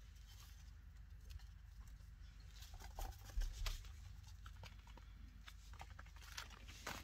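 Baby chinchillas scrabbling in a metal pan of bathing dust: faint scratching and light tapping of small feet and claws on the pan's rim and in the dust, with a few soft bumps about three seconds in.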